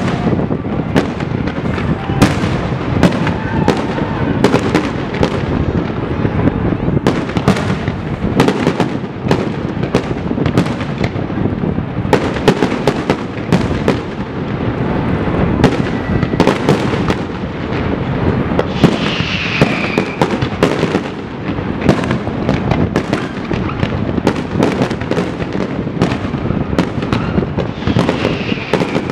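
Fireworks display: aerial shells bursting in quick succession, a continuous barrage of sharp bangs and crackling. A falling whistle about nineteen seconds in.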